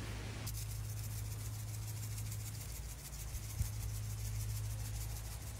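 Seasoning sprinkled onto a raw tomahawk ribeye and cutting board, the grains landing as a dense fine high patter from about half a second in, after a brief rub of a gloved hand on the meat. A steady low hum runs underneath, and there is one small knock past the middle.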